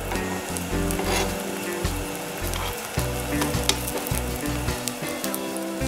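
Beaten egg and bread sizzling in a hot buttered nonstick pan, with a few light taps and scrapes of a table knife on the pan as butter is dabbed around the edges of the omelette.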